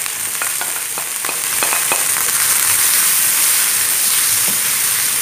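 Chopped onion and garlic sizzling in hot olive oil in a frying pan, with scattered crackles as the onion lands and a spatula stirring it. The sizzle grows a little louder about two seconds in.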